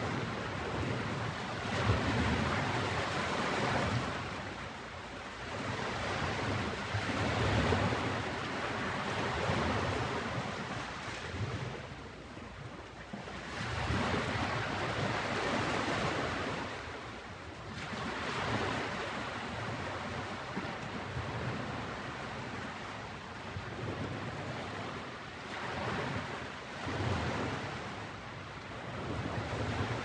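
Ocean surf: waves washing in and breaking as a continuous rushing hiss that swells and eases every few seconds.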